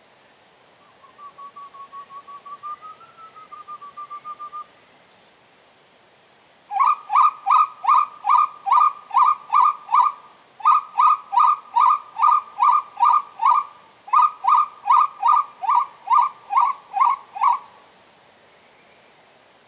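Whistled uru (spot-winged wood-quail) calls. A soft run of about a dozen notes, rising slightly, comes a second in. From about seven seconds there are three loud runs of evenly repeated notes, two or three a second, with short breaks between them.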